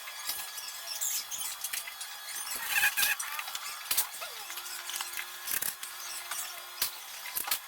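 Sped-up time-lapse audio of car repair work: a fast jumble of sharp clicks and short high squeaks, with a steady tone for about two seconds near the middle.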